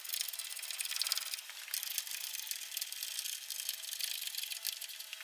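Rapid clicking of a hand ratchet running in the track adjuster bolts on a snowmobile's rear suspension, over a faint steady hum.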